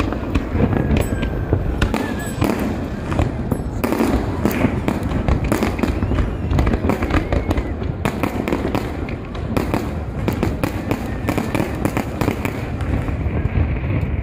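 Aerial fireworks bursting in quick succession: a dense, loud run of bangs and crackles.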